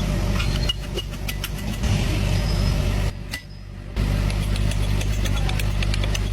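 Car engine running steadily, dropping away almost completely for about a second around three seconds in before carrying on, with scattered light clicks over it.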